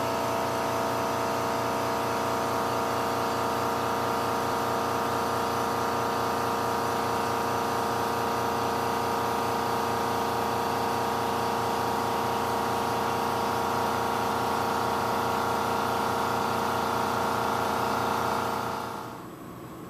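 International ambulance's diesel engine idling steadily with an even hum, which dies down over about a second near the end and leaves a quieter hum.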